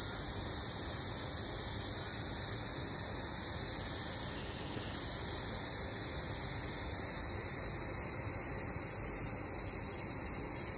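Steady hiss of steam escaping from the weighted valve of an aluminium pressure cooker at pressure.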